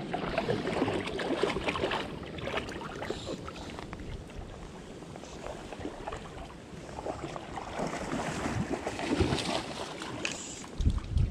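Shallow creek water rippling and splashing close to the microphone, with wind buffeting the microphone in low rumbles near the end.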